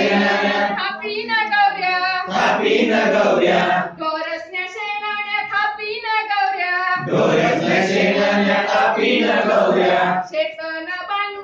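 A group of adults singing a Marathi action song in call and response. One voice sings a line and the whole group repeats it, back and forth about twice.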